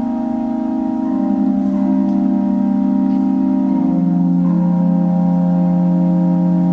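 Organ playing slow, sustained chords. The harmony shifts about a second in and again near four seconds in, each time with the bass note stepping down.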